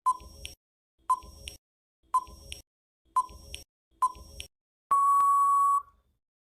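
Quiz countdown timer sound effect: five short electronic beeps about a second apart, then one longer steady beep lasting about a second that signals time is up.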